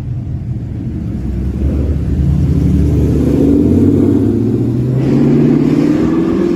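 Car engine and exhaust accelerating hard, the pitch climbing and getting louder, with a brief drop about five seconds in like a gear change before it climbs again.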